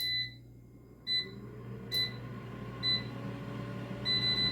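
Air fryer control panel beeping as its buttons are pressed, five short beeps about a second apart and then a longer beep near the end. Its fan runs under them with a steady low hum that starts with the first beep.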